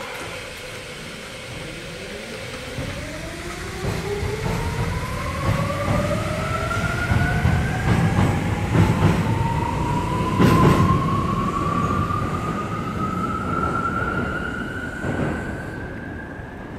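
Tokyo Metro 17000 series train pulling away, its Hitachi full-SiC MOSFET VVVF inverter and sealed 8-pole permanent-magnet motors whining in two tones that rise steadily as it accelerates. Under it runs a wheel-on-rail rumble with a few sharp clanks, the loudest about ten seconds in.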